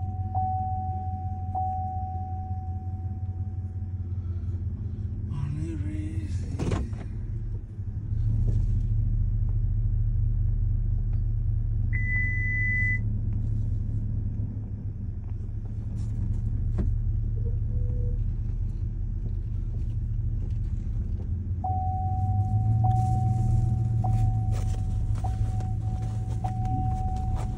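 Low steady rumble inside a car cabin, growing louder about eight seconds in. A thin high tone with soft regular pulses is heard at the start and again in the last few seconds, and a short higher beep sounds about twelve seconds in.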